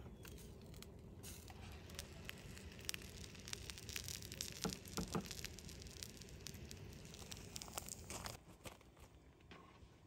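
Meat crackling and sizzling on the wire grill of a disposable cardboard smoking box, with clicks and knocks of metal tongs against the grate as the meat is lifted off. The crackling stops about eight seconds in.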